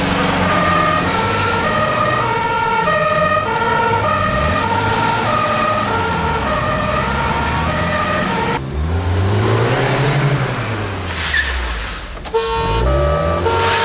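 Police two-tone siren (Martinshorn) alternating steadily between two pitches, over car engines revving. The siren drops out for about four seconds in the middle while a car engine revs up and falls away, then the two-tone sounds again near the end.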